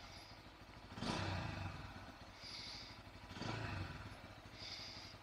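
Bajaj Pulsar N160's single-cylinder engine running at idle, revved briefly twice, about a second in and again past three seconds, each rev rising and falling back to idle within about a second.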